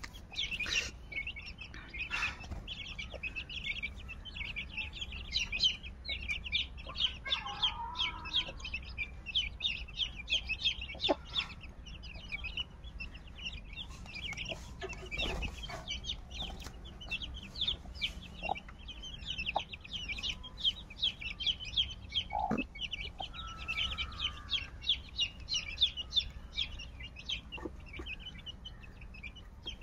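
A brood of young chicks peeping constantly in rapid, high little calls, with the mother hen giving a couple of short, lower clucks.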